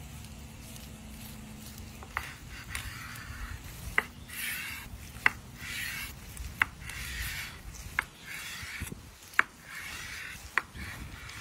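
A knife sawing through the charred crust of a smoked tomahawk steak on a cutting board. Rasping strokes alternate with sharp clicks, seven of them about every second and a half, starting about two seconds in.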